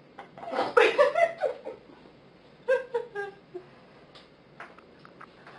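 A woman laughing in two bursts: one about half a second in, and a shorter run of falling 'ha' sounds near the middle.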